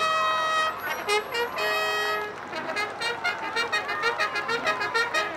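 Two long herald trumpets playing a fanfare: a couple of long held notes, then a quick run of short notes at about five a second.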